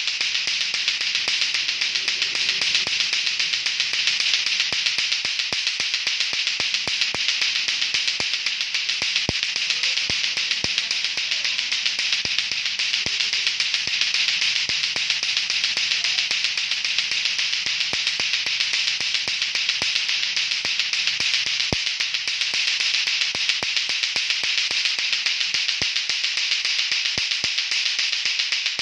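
Lato-lato clacker toy: two plastic balls on a string knocking together in a fast, steady run of clacks, with music underneath.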